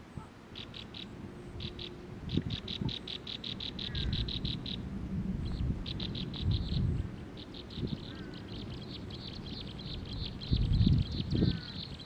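Small songbird chirping in rapid runs of short, high, evenly spaced notes, about eight a second, in short bursts at first and then without a break for the last few seconds. Low rumbling thuds come in near the end.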